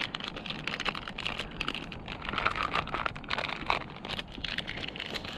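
Plastic snack wrapper crinkling and crackling as it is handled and torn open, in quick irregular crackles.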